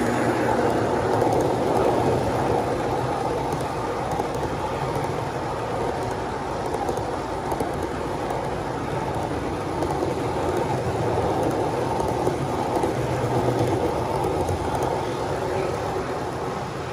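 HO-scale model freight train rolling past close by: the wheels of its boxcars run steadily over the track, with a faint hum underneath.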